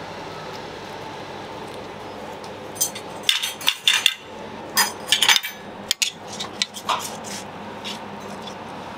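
Metal spoon scraping and clinking against a metal pan while scooping out baked meat: a quick run of sharp clinks and scrapes, some with a short ring, about three to seven seconds in, over a steady background hum.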